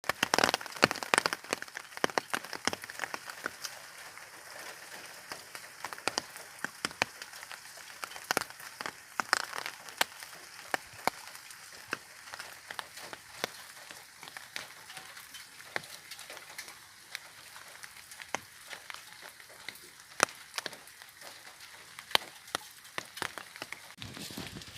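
Rain falling on an umbrella: irregular taps of drops hitting the canopy over a soft hiss of rain. The taps are thickest and loudest in the first few seconds.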